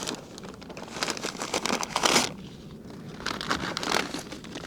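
Wrapping of a manufactured fire log crinkling and rustling as it is handled, in a run of short crackles with a louder burst about two seconds in.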